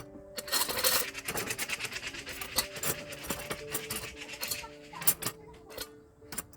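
Soft background music with long held notes, over irregular sharp clicks and short scraping noises.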